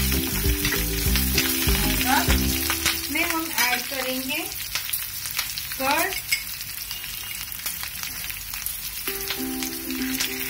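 Chopped ginger, garlic and green chillies sizzling in hot oil in a kadai, with the spatula clicking and scraping against the pan as they are stirred.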